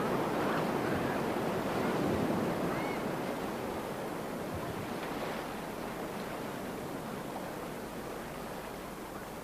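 Sea surf: waves washing and churning in a steady noisy wash that slowly dies down.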